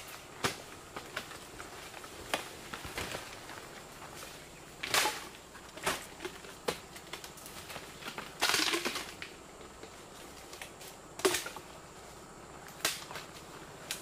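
Irregular knocks and cracks, about eight of them spread unevenly, with one longer rustling scrape a little past halfway.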